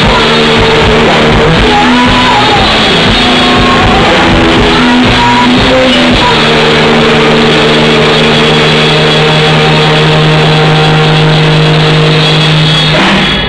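Loud live rock music: electric guitar with drums. From about halfway a chord is held steadily, then the music breaks off just before the end.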